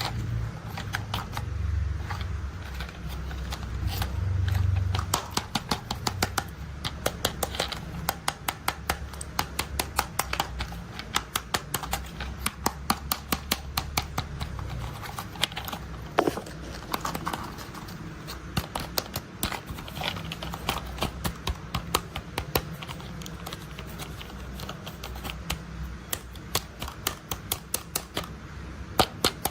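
Plastic toy construction vehicles being handled and tapped: rapid, irregular clicks and taps, over a low rumble that fades out about halfway through.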